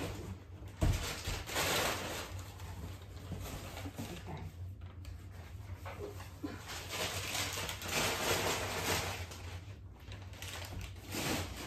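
Crumpled newspaper packing rustling in spells as items are dug out of a cardboard box, with one sharp knock about a second in.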